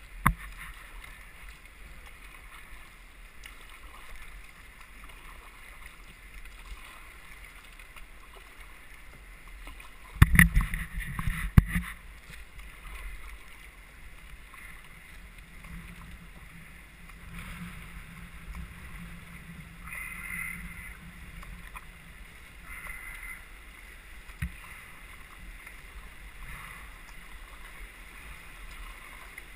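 Water swishing and lapping around an open canoe's hull while it is paddled on a moving river, with the splash of single-blade paddle strokes. A short burst of loud thumps and rumble comes about ten seconds in, and a single sharp knock comes later on.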